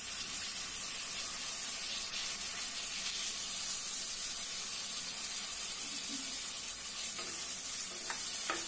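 Chopped tomatoes, onions and spices sizzling steadily in hot mustard oil in a kadhai as they are stirred with a spatula.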